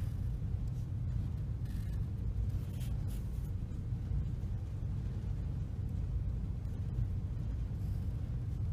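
Graphite pencil scratching short strokes on paper along a metal ruler, with a few brief strokes about two and three seconds in, over a steady low background rumble.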